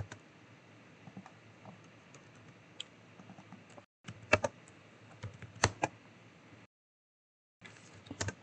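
Computer keyboard and mouse clicks: scattered single taps, with a few quick runs of clicks in the middle, over faint room hiss. The sound drops out completely for about a second near the end.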